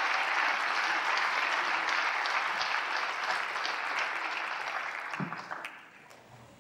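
Audience applauding, the clapping fading out about five and a half seconds in with a few last separate claps.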